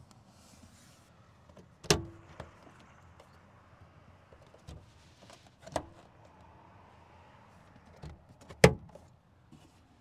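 Three sharp clunks from the 2024 Dongfeng M5 van's cabin fittings being worked, spaced about three seconds apart. The first two ring briefly after the knock, and the last is the loudest.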